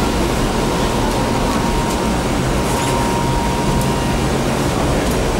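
Tatra T3 tram running along the line, heard from inside the car: a steady rumble of wheels on rail and running gear, with a thin steady whine over it.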